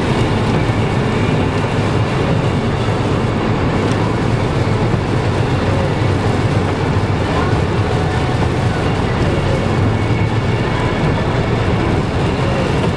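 Steady road noise inside a car's cabin at motorway speed on a rain-soaked road, a constant low rumble with tyre and spray hiss over it.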